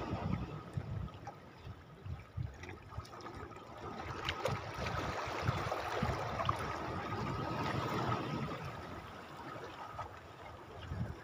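Sea water sloshing and trickling against shoreline rocks, rising and falling in loudness, with a faint steady high tone throughout and a few light clicks in the middle.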